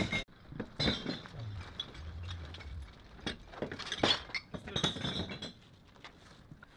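Glass bottles clinking against one another in a loaded shopping trolley as it is moved and the bottles are handled, a string of irregular sharp clinks that dies away near the end.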